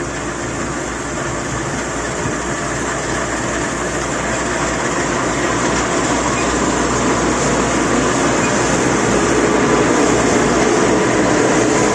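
Heavy farm machinery engine running steadily under load, slowly getting louder.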